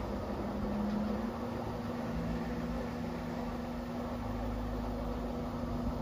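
Front-loading washing machine running in its first rinse, not the spin cycle: a steady motor hum and whine over the rush of the turning drum.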